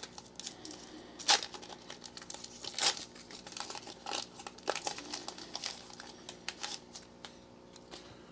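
Foil wrapper of a Panini Prestige football card pack being torn open and crinkled in the hands: a run of crackles with two louder rips, about a second and about three seconds in, and the crinkling dies down near the end.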